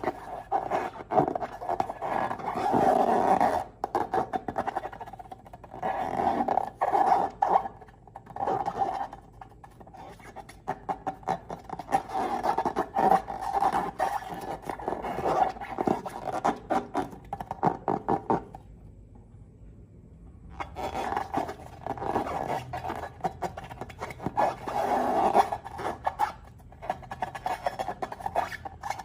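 Slime being squeezed and worked by hand, making rapid sticky squelches and clicking pops with scraping textures. The sounds stop for about two seconds around two-thirds of the way through, then start again.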